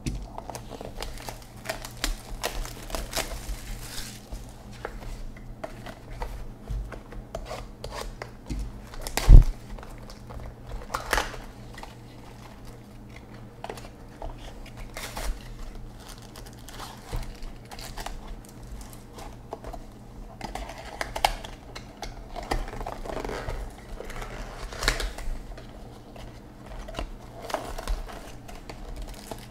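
Plastic shrink wrap crinkling and tearing as it is peeled off a box of baseball cards, with irregular handling clicks and rustles throughout. One loud thump about nine seconds in.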